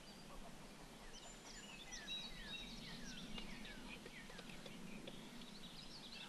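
Faint chorus of songbirds, many short overlapping chirps and song phrases from several birds, over a steady low background hum.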